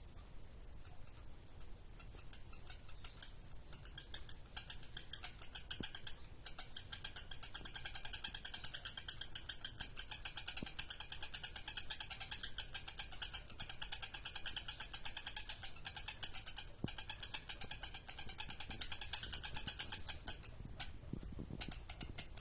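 Lovebird singing a long unbroken ngekek: a rapid, even chatter of high, harsh notes. It builds up a few seconds in, runs for about seventeen seconds and stops near the end, followed by a few separate notes.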